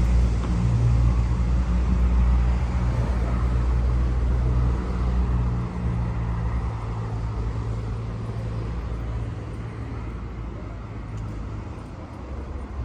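City road traffic, with a motor vehicle's engine close by giving a steady low hum. The hum fades away gradually over the second half.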